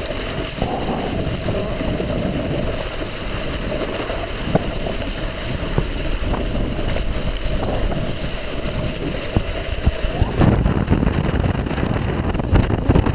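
Wind buffeting the microphone and water rushing past a Hobie 16 catamaran sailing fast in strong wind, with a steady humming tone that rises briefly and stops about ten seconds in.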